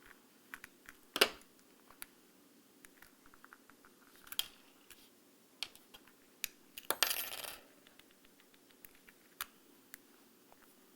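Small hard clicks and a short rattling scrape from a two-button key fob's plastic case being pried apart and handled. The sharpest click comes about a second in, and a longer scrape about seven seconds in.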